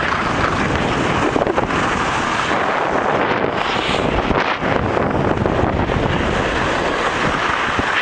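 Wind buffeting the microphone of a camera carried down a ski slope at speed: a loud, steady rushing roar.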